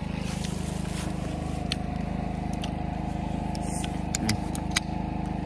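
An engine running steadily at idle, a low even drone with a fast regular pulse. A few light clicks sound over it.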